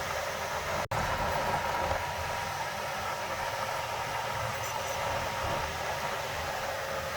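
Heavy earthmoving machinery running steadily, a continuous engine and mechanical noise. The sound drops out for an instant about a second in.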